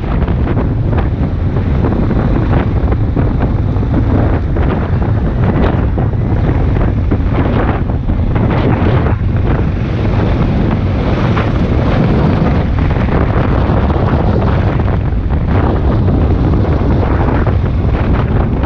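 Wind buffeting the microphone: a loud, constant low rumble with frequent short gusts.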